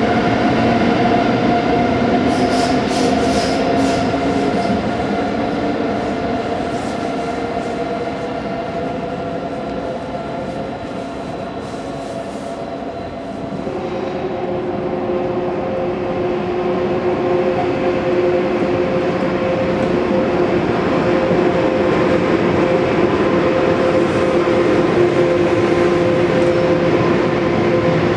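A DB Class 101 electric locomotive moving with its Intercity train, its drive giving several steady whining tones over the rumble of wheels on rail. About 14 s in it gives way to a long freight train of car-transporter and steel-coil wagons rolling past, with a steady whine and wheel noise.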